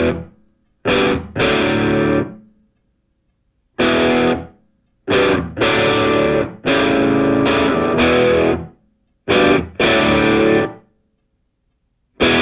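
Background music: distorted electric guitar chords played in short stop-start stabs, each cut off or fading away into a brief silence before the next.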